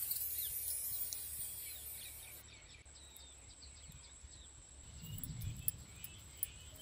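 Birds chirping over a low steady hiss. Near the end comes a soft rumble and a couple of sharp knocks: stone on stone as a tiny stone roller is handled on a miniature grinding stone.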